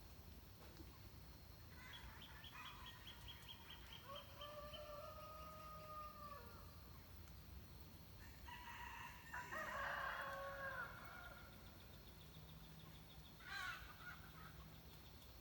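A rooster crowing faintly: one long crow about four seconds in and a louder one around ten seconds. Short, quick trilling calls from other birds come in between.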